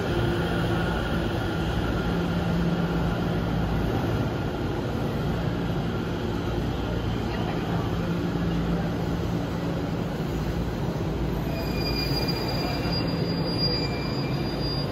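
JR East E231 series commuter electric train creeping forward along the platform after restarting from an emergency stop, with a steady running rumble and hum. A thin, high-pitched wheel squeal comes in about twelve seconds in.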